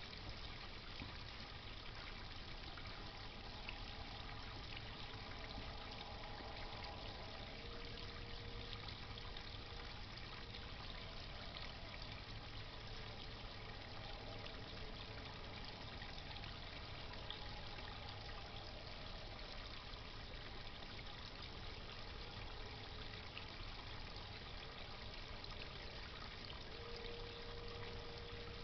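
Steady trickle and splash of water from a garden pond pump. A faint held tone comes in briefly twice, about a quarter of the way in and again near the end.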